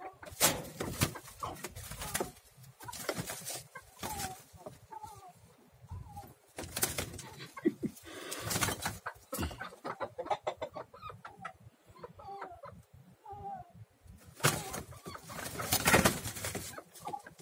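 Roosters fighting: repeated flurries of wing flapping and bodies striking, with short low clucking calls between them. The loudest flurry comes near the end.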